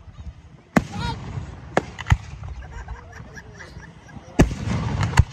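Aerial fireworks shells bursting in the sky: about five sharp bangs, the biggest about a second in and near the end, the later one trailed by a low rumbling echo.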